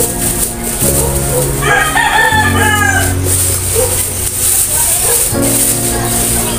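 A rooster crows once, for about a second and a half, starting about two seconds in, over background music.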